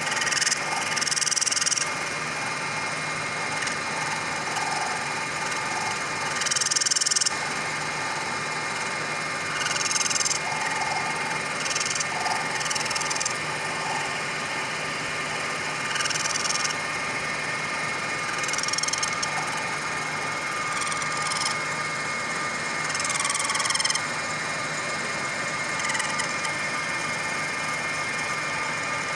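Centre lathe running at high speed, a steady motor and gear hum with a constant whine. Short bursts of high hiss come at irregular intervals as the cutting tool bites into the mild steel rod during plain turning.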